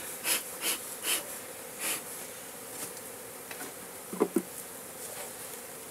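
Bee smoker bellows puffing, short hissing bursts about two to three a second that stop after about two seconds, over the steady buzz of honey bees around the opened hive. A brief low sound about four seconds in.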